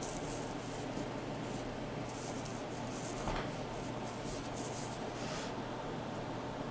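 Faint rubbing and brushing of fingertips over coarse fabric as a necklace is handled, in several short swishes over a steady background hiss, with one soft tick a little after three seconds in.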